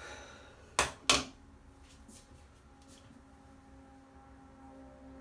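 Hairbrush set down on a hard surface, giving two sharp knocks about a third of a second apart.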